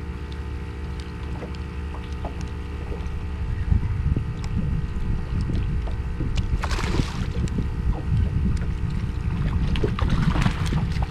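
A hooked ladyfish splashing at the surface twice, about two-thirds of the way in and again near the end, over a steady low wind rumble on the microphone.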